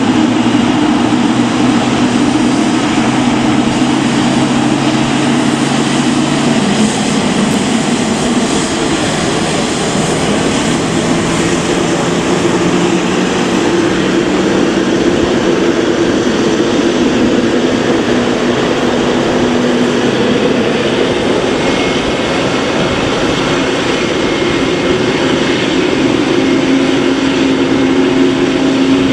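Jet airliner engines running, a loud steady rushing noise with a low hum that shifts in pitch a few times.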